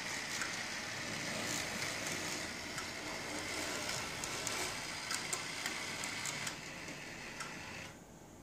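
Bachmann Peter Witt model streetcar running on its track: an electric motor whir with scattered light clicks from the wheels on the rails. It quietens about 6.5 s in and stops about 8 s in as the car halts at a stop.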